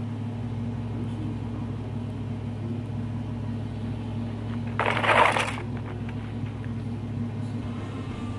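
A steady low hum runs throughout. About five seconds in there is one short, loud rustle or scrape as the archer handles her compound bow and draws it.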